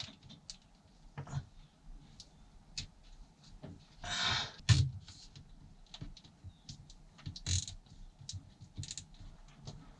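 Scattered light clicks and knocks of hands at work, with a brief rustle about four seconds in, a sharper knock just after it, and another rustle past the middle.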